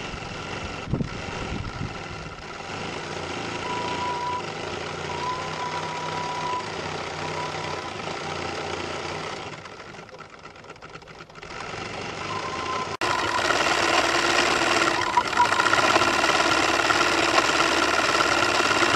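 Small live-steam engine and boiler plant of a model steamboat running steadily. From about 13 seconds in it is heard close up and louder.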